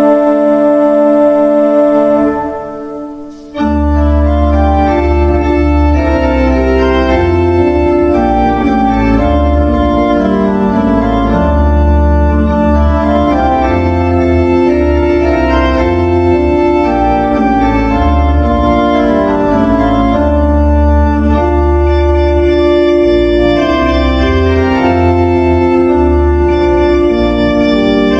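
Church organ playing: a held chord fades out about two seconds in, and after a short break a new passage starts with deep pedal bass notes under slowly changing chords.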